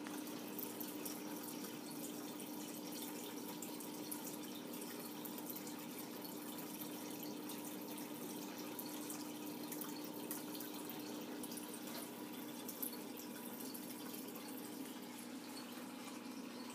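Small aquarium's water running steadily, a continuous trickling and dripping with a steady low hum underneath, as from a tank filter returning water.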